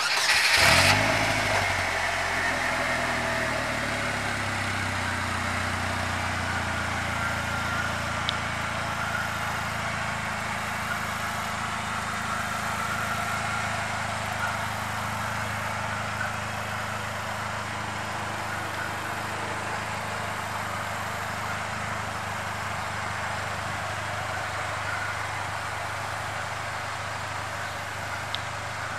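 2018 Polaris Slingshot SL's 2.4-litre four-cylinder engine starting. It flares up in pitch as it catches and then settles within a couple of seconds to a steady idle.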